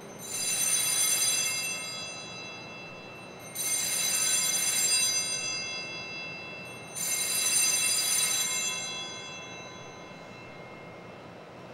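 Altar bells rung three times, about three and a half seconds apart, each ring a bright metallic ringing that fades away; in a Mass this marks the elevation at the consecration.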